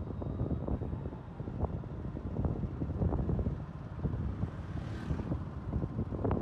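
Wind rumbling on the microphone during a ride along a city road, with vehicle and road noise underneath and many small uneven knocks.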